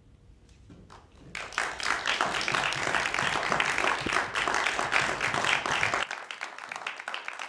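Audience applause: a few scattered claps about a second in, quickly swelling into full, steady clapping that cuts off abruptly at the end.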